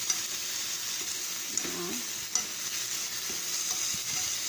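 Chicken pieces with onion and green chili sizzling in oil in a frying pan, with a steady hiss as a wooden utensil stirs them. A few sharp taps of the utensil against the pan.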